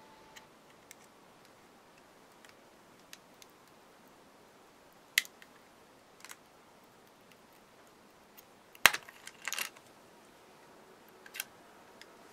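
Small screwdriver tip clicking and scraping against a surface-mount chip and circuit board while prying at the heated chip. There are a few sharp isolated clicks, the loudest about nine seconds in, followed by a short cluster of clicks.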